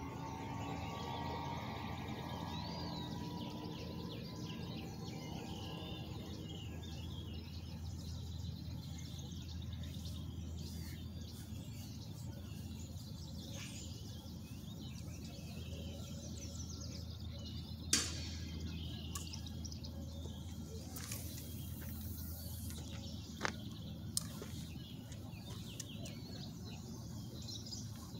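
Open-air ambience: birds chirping, mostly in the first third, over a steady low background rumble. A single sharp click comes about two-thirds of the way through, with a couple of fainter ticks a few seconds later.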